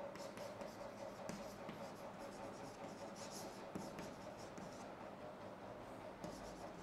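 Chalk writing on a chalkboard: short, irregular scratching and tapping strokes as words are written out, over a steady background hum.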